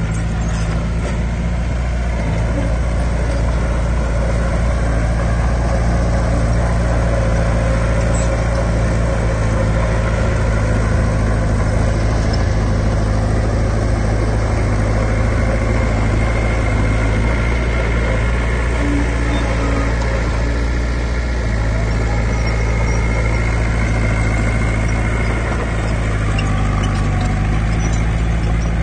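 Heavy earthmoving machine's diesel engine running steadily and loudly, its low note shifting slightly in the last third.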